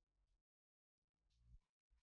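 Near silence, with a few very faint, brief low sounds broken by stretches of dead silence.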